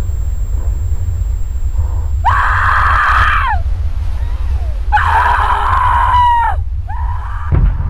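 A young woman screaming in distress, three times: two long screams that fall in pitch at the end, then a shorter one. A steady low rumble runs underneath, and a thump comes near the end.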